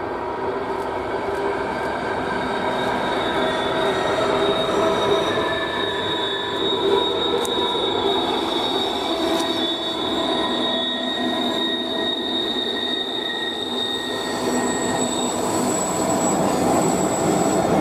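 Diesel-hauled passenger train passing, its running noise carrying long, steady, high-pitched wheel squeal.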